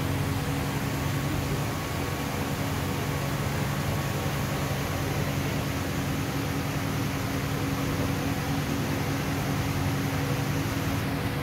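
Steady mechanical hum with an even hiss underneath, unchanging throughout.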